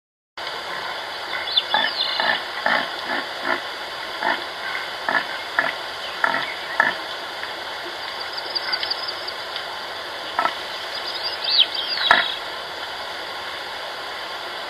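A wild animal giving a run of short, low calls, about two a second, over a steady background hiss. The calls then thin out to a few single ones, with a few brief higher chirps.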